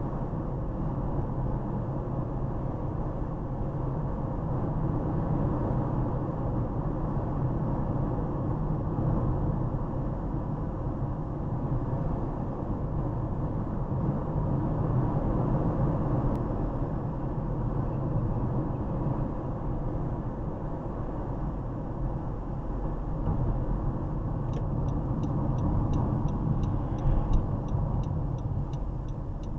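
Steady road and engine rumble inside the cabin of a moving Honda CR-V. Near the end a regular ticking starts, about two to three clicks a second, typical of the turn signal relay.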